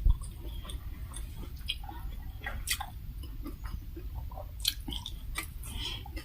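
A person chewing a mouthful of rice, curry and fried food close to the microphone, with many short moist clicks and crisp crunches. There is a single low knock right at the start.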